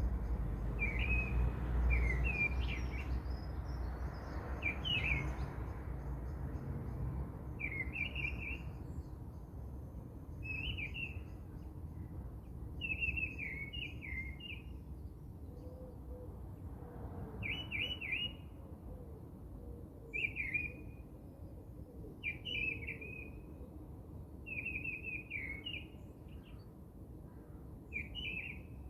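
A bird singing repeatedly in short chirping phrases, one every second or two, over a low background rumble that is strongest in the first few seconds.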